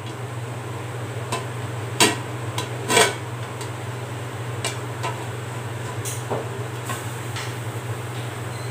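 A metal lid being lifted off a heavy kadai used as a steamer: several sharp metal clinks and knocks, the loudest about three seconds in, over a steady low hum.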